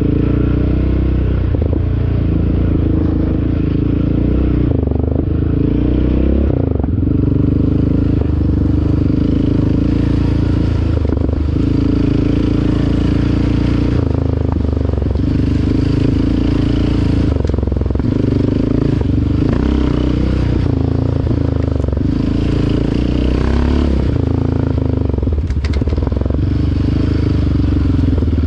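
ATV engine running as it is ridden, its pitch rising and falling again and again as the throttle is opened and closed.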